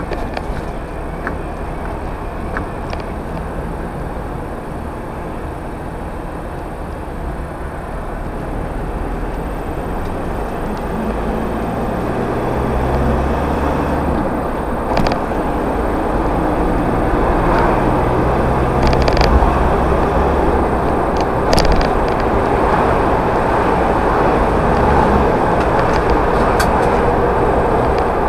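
Car engine and tyre noise heard from inside the cabin through a dashcam, growing louder over several seconds as the car picks up speed after a roundabout, then holding steady. A few short knocks sound in the second half.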